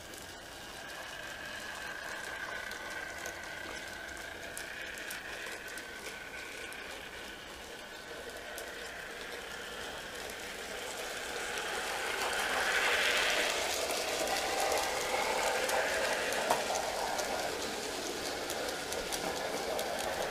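N gauge model train running on its track: a faint electric motor whine with fine clicking and rattle from the wheels, growing louder about twelve seconds in.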